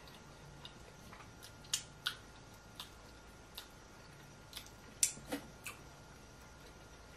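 Wet mouth sounds close to the microphone: scattered sharp lip smacks and clicks from chewing and sucking food off the fingers, about ten in all, with the loudest a little after five seconds in.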